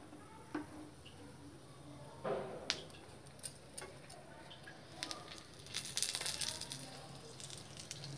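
A metal spoon spreading ghee over a chapathi on a hot tawa: light clinks and scrapes of the spoon on the bread and pan, with a short spell of sizzling about six seconds in.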